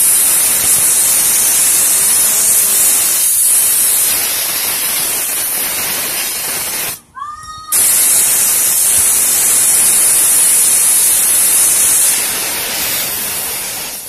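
Compressed air blasting from a compressor blow gun onto a handheld fidget spinner: a loud, steady hiss. It stops for under a second about halfway through, resumes, and fades near the end.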